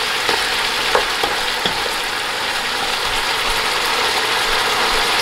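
Beef short ribs sizzling steadily in chicken stock that is boiling down over high heat in a large pot. There are a few light clicks of tongs against the pot in the first couple of seconds.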